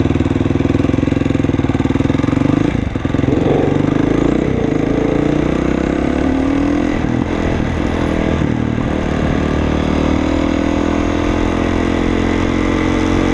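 A supermoto's single-cylinder engine running under way, heard from the rider's position. The engine note breaks briefly about three seconds in, then climbs steadily in pitch as the bike accelerates through the second half.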